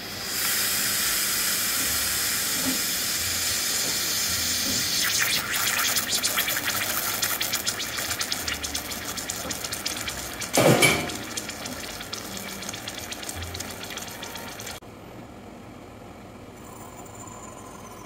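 Odyssey Argos lever espresso machine pulling a test shot: water hisses steadily through the group head, turns sputtery and rattling after about five seconds, gives one louder gush near eleven seconds, and cuts off suddenly near fifteen seconds.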